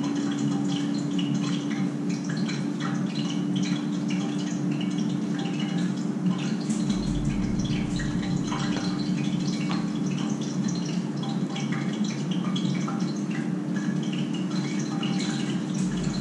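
Steady whirring hum of a countertop air fryer's fan running while it cooks, with faint scattered rustles and taps of shark pieces being coated in cornmeal in a plastic tub.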